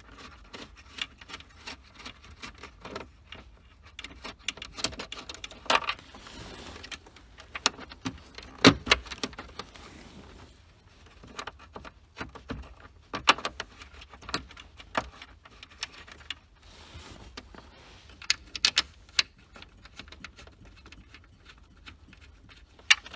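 Irregular small clicks, taps and rattles of hand tools, screws and plastic dash trim as a screw is fumbled into the dash panel. The loudest knock comes about nine seconds in.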